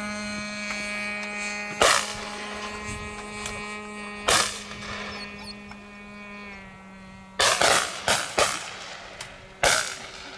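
Shotgun shots at a simulated driven clay shoot: single shots about two and four seconds in, then a quick run of four shots and one more near the end.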